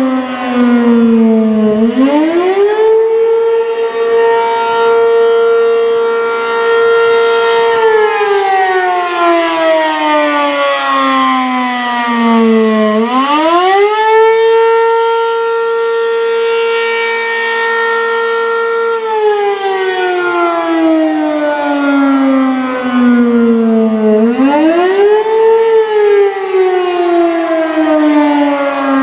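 ACA P-15 outdoor warning siren sounding the Attack signal, a repeating wail. Each cycle the pitch climbs quickly, holds for about five seconds, then falls slowly over about five seconds. It climbs again roughly every eleven seconds, three times in all, the first about two seconds in.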